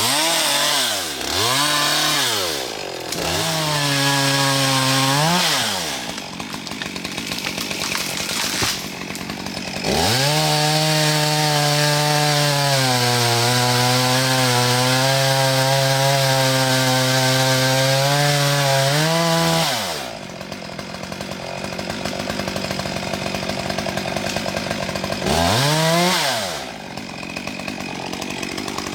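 Chainsaw revved in short blips, then held at full throttle through a long cut of about ten seconds, its pitch sagging slightly under the load of the wood. It then drops back to idle, with one more quick rev near the end.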